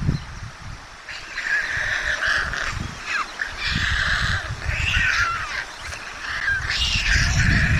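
Young white storks in the nest giving repeated bouts of short calls, starting about a second in.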